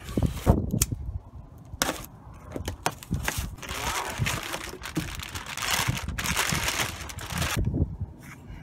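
Foil wrap and packing paper crinkling and rustling as a new water pump is unpacked from its cardboard box by hand, with a few short rustles and taps early on, then a longer run of crinkling in the middle.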